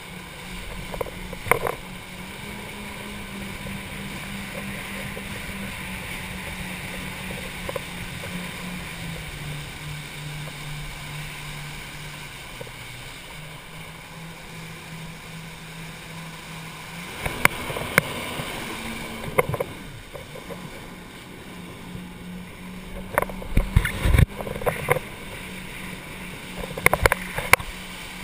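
Personal watercraft (jet ski) engine running steadily with water rushing past. Its note drops for a stretch in the middle and picks up again about two-thirds of the way through. Sharp thumps and splashes come in clusters in the second half as the hull hits the chop.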